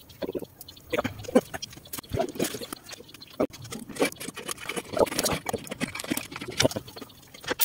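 Cardboard template being pressed and fitted against a rusty steel truck chassis rail: irregular rustles, scrapes and soft taps of the cardboard against the metal.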